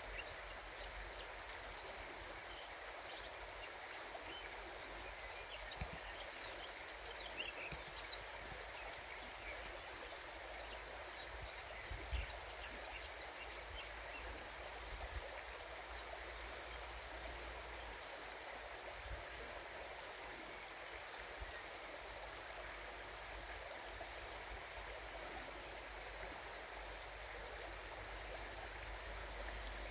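River water running: a steady rushing hiss. A few brief clicks and faint high chirps rise above it in the first half.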